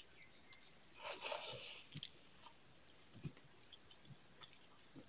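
Quiet, wet mouth sounds of someone chewing a handful of rice with pumpkin and chicken curry, with a short spell of smacking about a second in and a sharp click about two seconds in.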